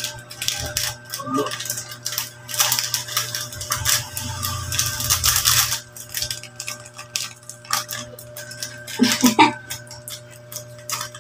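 Crinkling of a snack wrapper being torn and unwrapped by hand, with a dense run of crackles in the middle. A short voice sound comes about nine seconds in.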